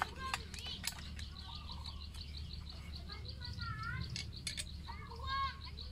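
Birds chirping: a fast, even run of high chirps, about six a second, with louder sweeping calls now and then, the loudest near the end. A few sharp light clicks come near the start and again about two thirds of the way in.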